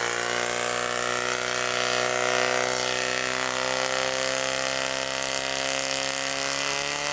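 Portable fire pump's engine running steadily at full throttle, pumping water through the attack hoses, its pitch level and unbroken.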